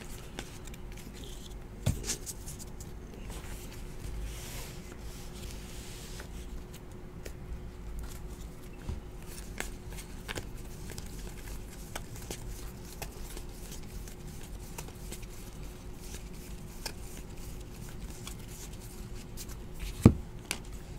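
2017-18 Donruss basketball trading cards being flipped through by hand: faint sliding and flicking of card stock, with a sharp tap about two seconds in and a louder one near the end, over a faint steady hum.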